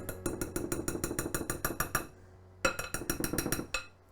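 Spoon knocking and scraping against a bowl or container in two quick runs of clinks, about eight a second, with a short pause between, as sour cream is spooned out.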